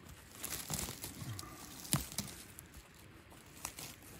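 Hand rustling and scraping through dry conifer needles, twigs and forest soil while uncovering a porcini mushroom, with one sharp crack about two seconds in and a few lighter ticks after.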